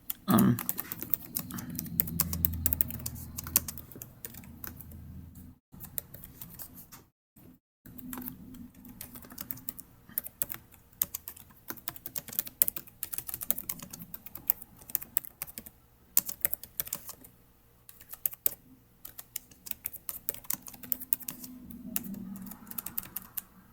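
Computer keyboard typing: irregular runs of keystrokes as a text prompt is typed, with short pauses between bursts.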